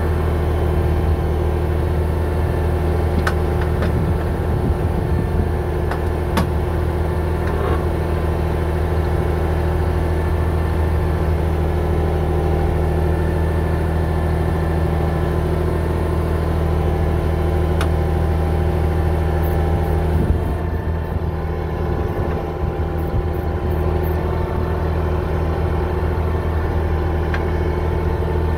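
Bulldozer's diesel engine running steadily at an even speed, with a few sharp clicks.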